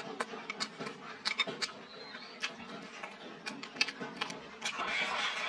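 Close-up eating sounds: a person chewing a mouthful of rice and stir-fry while wooden chopsticks click and scrape against the bowl, many short sharp clicks, with a louder burst of mouth noise near the end.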